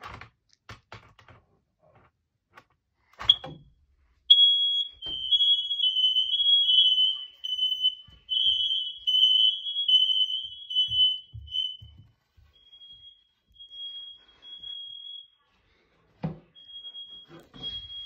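Hardwired, interconnected smoke alarms going off after a test button is pressed. After a knock about three seconds in, several units sound together with a shrill, high beeping on slightly different pitches. It turns fainter after about twelve seconds.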